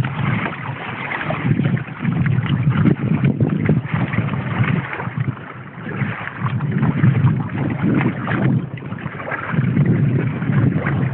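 Water washing and splashing along the hull of a Feelfree Moken 13 trimaran kayak under sail, with wind buffeting the microphone; the noise swells and dips unevenly.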